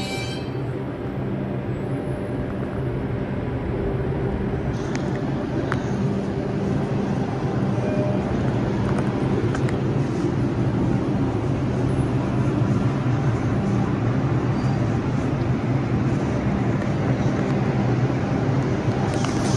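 R142 subway train standing at an elevated station, its onboard equipment giving a steady two-tone low hum that grows slightly louder. The tail of a high wheel squeal dies out at the very start, and there are a few faint clicks.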